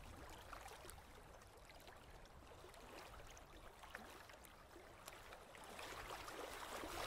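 Faint lapping and trickling of small water ripples, almost at the level of silence, growing a little louder near the end.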